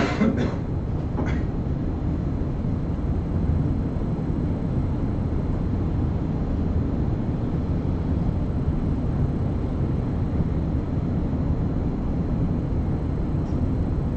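A steady low rumble of background noise with no rhythm or change.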